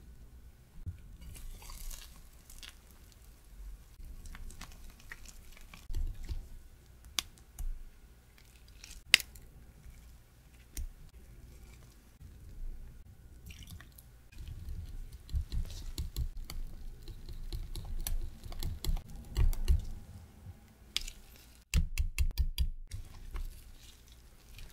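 Wire whisk and silicone spatula stirring thick corn custard cream with pieces of butter in a glass measuring jug: irregular wet squishing, with occasional sharp clicks.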